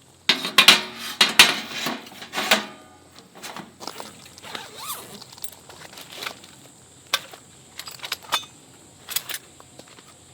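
Camping gear being handled: a burst of metallic rattling and clinking over the first two seconds or so, then scattered single clicks and knocks.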